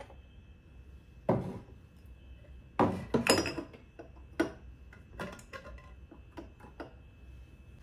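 Glass mason-jar mugs with metal lids being set down and shuffled on a wooden cabinet shelf: a string of knocks and clinks, the loudest cluster about three seconds in, then lighter taps.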